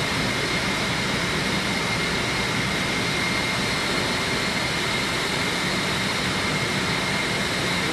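Steady machinery noise in a chiller plant room: a continuous rushing hum with a thin high whine held on one pitch.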